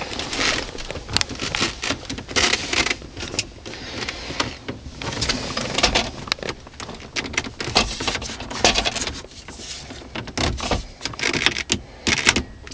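Plastic dashboard trim being handled and pressed back into place: irregular clicks, knocks and scraping.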